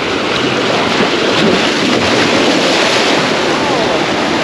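Steady wind noise on the microphone mixed with the wash of surf.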